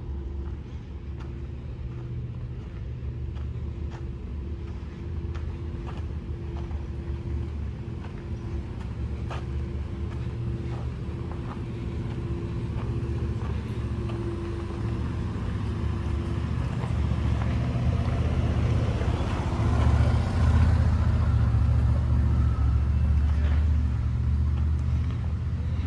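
A vehicle engine running with a steady low rumble, growing louder over the second half.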